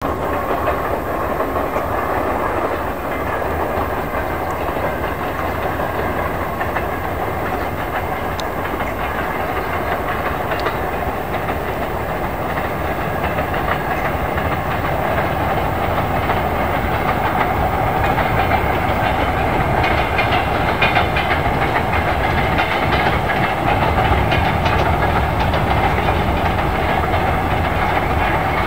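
Freight train hauled by a 2TE10L twin-section diesel locomotive with two-stroke opposed-piston engines, running along the line as a steady rumble of engines and wagons that grows gradually louder as it approaches.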